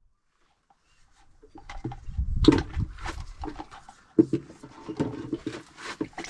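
Hand-operated oil transfer pump being worked, pushing fresh engine oil through its metal spout into a plastic funnel, in uneven strokes that start about a second and a half in.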